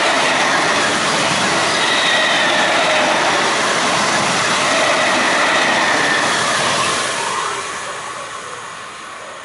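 MTR East Rail line Metro-Cammell electric multiple unit (MLR) passing close by at speed: a loud, steady rush of wheels on rail with faint thin high tones above it, fading from about seven seconds in.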